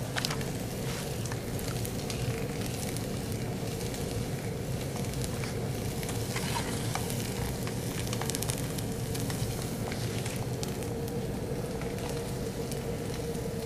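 Methanol fire tornado burning in a spinning mesh cylinder: a steady sizzling rush of flame with frequent small crackles, over a steady low hum.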